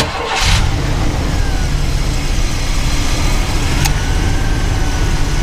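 Truck engine starting about half a second in and then idling steadily, its vacuum drawn through a hose on the PCV system to suck air-spring bags flat. A sharp click near the end.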